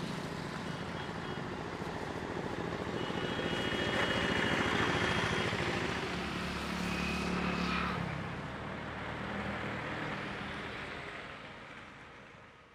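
Road traffic ambience: trucks and other vehicles running in a steady rumble, with a few short high tones, fading out near the end.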